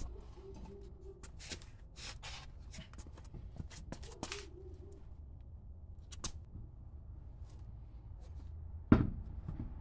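Scattered clicks and light knocks of hand tools at work on a car's rear suspension, with one heavy knock about nine seconds in.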